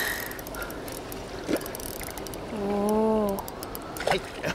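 A hooked brown trout splashing at the surface as it is played to the bank, with light ticking from the spinning reel. A short hummed voice comes about halfway through, and near the end a splash as the landing net scoops the fish.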